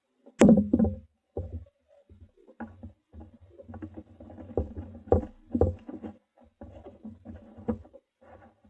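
Hands handling a parts box and its packaging: a sharp knock about half a second in, then scattered bumps and rustles as the contents are moved about.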